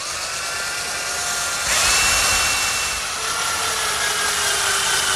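Electric drill running, pre-drilling screw holes through a hinge and then driving a screw into it. It is a steady whine that jumps up in pitch and loudness about two seconds in, then drops back and sinks slightly in pitch.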